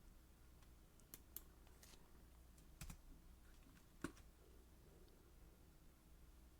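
Faint computer keyboard keystrokes: a handful of scattered clicks, the loudest about four seconds in, as a terminal command is typed.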